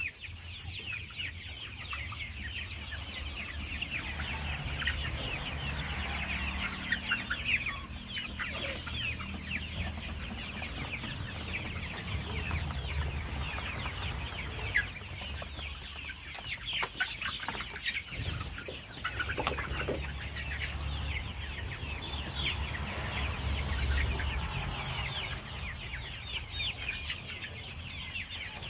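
A flock of desi chickens clucking and calling, many short overlapping calls at once, with a steady low rumble underneath.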